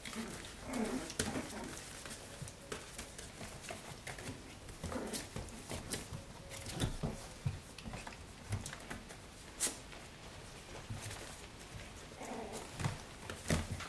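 Schipperke puppies playing in a newspaper-lined pen: scattered scratching and rustling of paws on paper, with a few short puppy vocal sounds near the start and again near the end.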